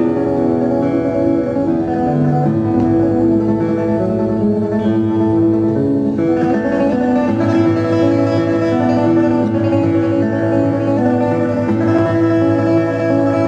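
Instrumental music: a plucked string instrument playing over a steady, held low drone.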